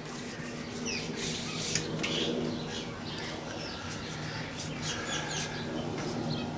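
Birds chirping in short, scattered calls, over a low steady hum and a few light clicks.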